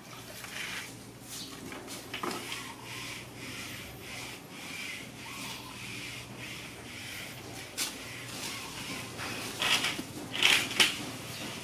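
Irregular rustling and scraping, with a sharp scrape about eight seconds in and a couple of louder ones near the end.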